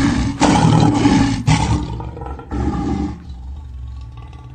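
Lions roaring in a fight: several loud roars in the first two seconds, a shorter one about two and a half seconds in, then a quieter low rumble.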